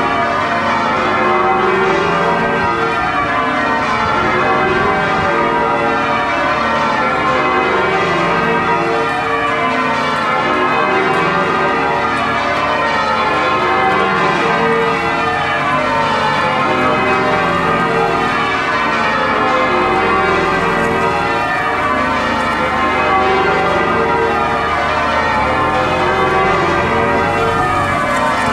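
York Minster's church bells ringing in changes: many bells struck one after another in repeating descending rows, their tones overlapping in a continuous peal.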